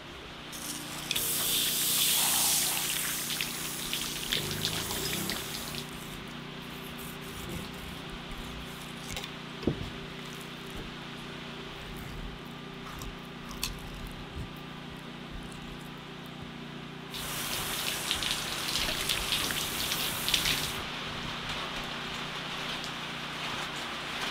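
Running water splashing onto a wet cutting board as whole salmon are rinsed and filleted. It comes in two spells, about a second in and again about two-thirds of the way through. A steady low hum runs underneath, and a few light knocks sound in between.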